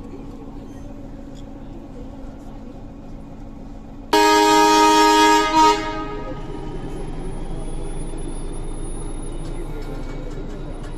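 The Nilgiri toy train's diesel locomotive sounds its horn once, loud and lasting nearly two seconds, about four seconds in, and then cuts off sharply. The steady rumble of the train runs underneath.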